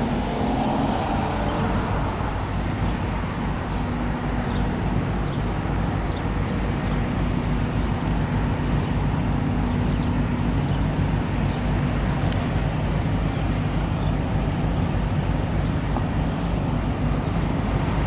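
Steady road traffic noise: the continuous hum of car engines and tyres, with a low engine drone.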